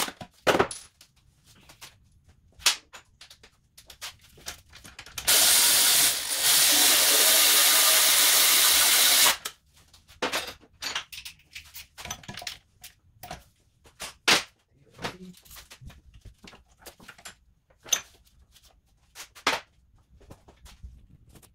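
Aerosol spray can hissing in one steady burst of about four seconds, starting about five seconds in. Scattered light clicks and knocks come before and after it.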